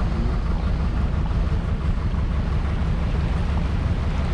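Tour boat under way on the water: a steady low rumble with the wash of water and wind buffeting the microphone.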